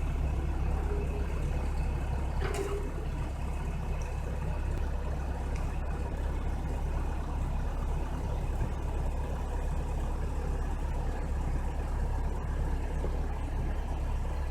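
A vehicle engine idling steadily, a low, even rumble, with a single light click about two and a half seconds in.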